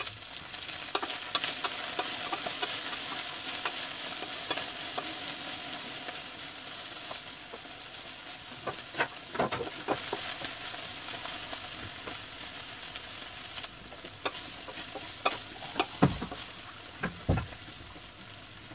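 Sliced okra sizzling as it fries in oil in a stainless steel pan, stirred with a wooden spatula that scrapes and knocks against the pan. The knocks come in clusters, with the heaviest thuds near the end.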